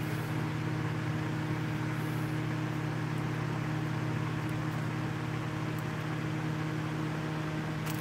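Steady low mechanical hum from a fan or motor-like source, with a few faint ticks.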